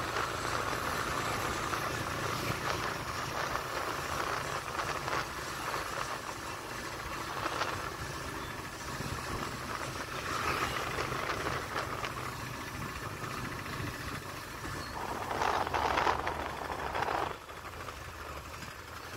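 Motorbike engine and road noise heard while riding in traffic, a steady rumble with a few louder swells, dropping suddenly to a quieter level about seventeen seconds in.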